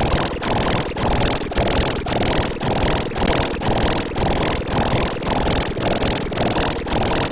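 Sparta remix music mangled by heavy audio effects into a dense, noisy, distorted wash, pulsing about twice a second with the beat.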